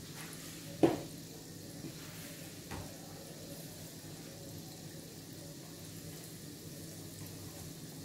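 Rings of anise-and-lemon dough deep-frying in a pan of hot oil, a steady soft sizzle, with one sharp knock about a second in and a fainter one near three seconds.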